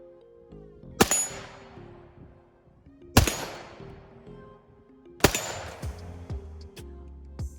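Three single shots from an AR-15 chambered in 300 Blackout, fired about two seconds apart, each followed by a trailing echo. Music plays underneath.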